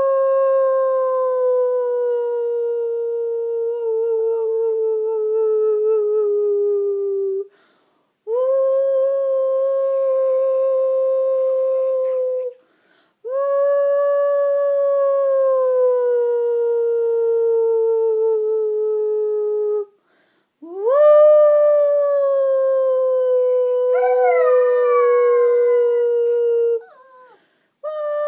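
A poodle howling in long, drawn-out howls, each sliding slowly down in pitch, with short breaks for breath between them. About three-quarters through, a second, briefer wavering cry overlaps the howl.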